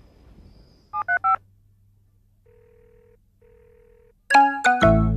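Push-button telephone being dialed: three quick keypad tones about a second in, then two faint, steady ringing tones on the line. Near the end a loud run of short, pitched notes breaks in.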